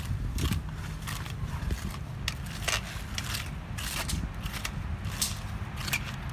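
Paving work: irregular sharp clicks, knocks and scrapes of hand tools on paving stone and mortar, over a steady low rumble.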